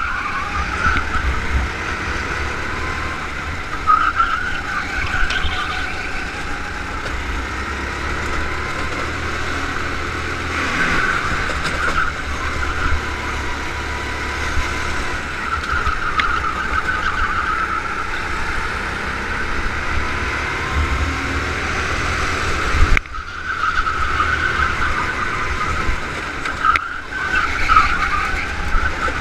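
Go-kart engine running at speed on track, its note rising and falling as the kart brakes and accelerates through the corners, with a low rumble of wind on the onboard camera's microphone. The sound cuts out briefly twice near the end.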